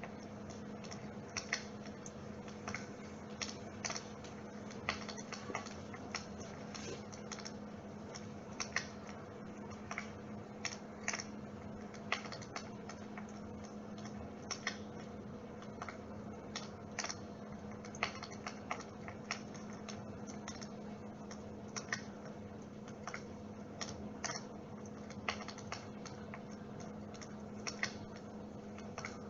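Dimplex water-mist electric fireplace running: a steady low hum under irregular sharp crackling clicks, like a small wood fire.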